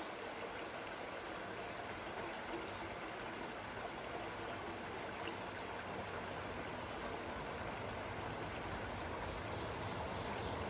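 Shallow creek water running steadily over rocks, an even rushing trickle. A low rumble builds underneath it in the last few seconds.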